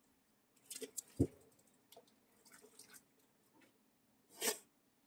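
Scattered handling and movement noises: faint clicks and rustles, a sharp thump about a second in, and a short swish near the end.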